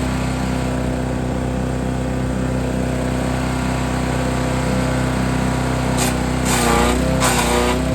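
Forest Master FM8DD wood chipper's petrol engine running steadily, then near the end three short bursts of branches being chipped, the engine note dipping a little under the load.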